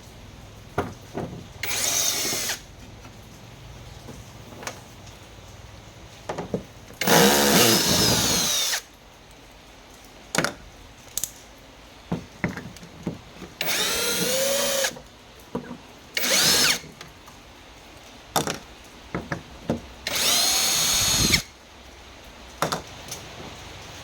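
Small handheld power tool running in five short bursts, its pitch rising and falling within each, with sharp clicks and small knocks in between, as on work taking apart a TV's casing and power supply board.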